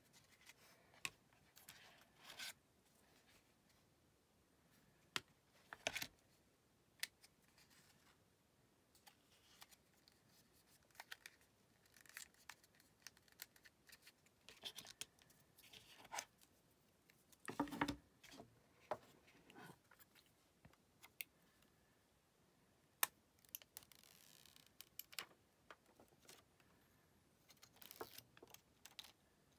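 Faint handling sounds of phone accessories being unpacked: scattered clicks and taps of plastic and cardboard packaging picked up and set down on a wooden table, and short rustles and tearing of paper wrapping coming off the cable. The loudest rustle comes a little past halfway.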